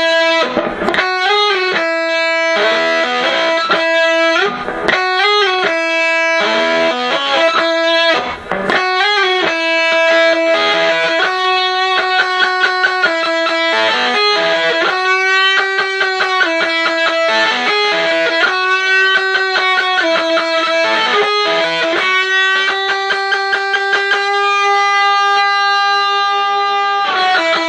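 Electric guitar played through a Buzzsound fuzz pedal (a Castledine Buzzsound clone) with sustain at full: single-note lines with long held notes, some bent or wavering in pitch, and one long sustained note near the end. The guitar's volume knob is rolled back to clean up the fuzz.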